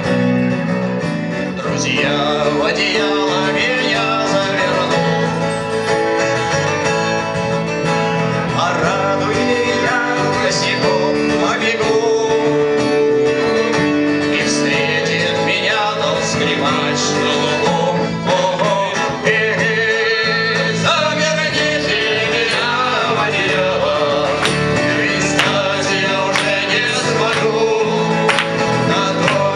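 A song played on acoustic guitar with a voice singing over it.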